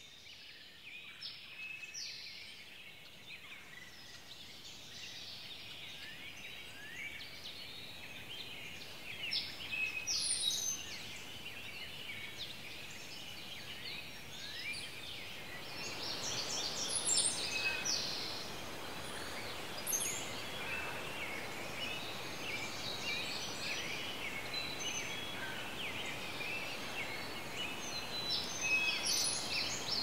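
Dense chorus of many short, high chirps, squeaks and trills, overlapping and growing busier. A steady hiss joins underneath about halfway through.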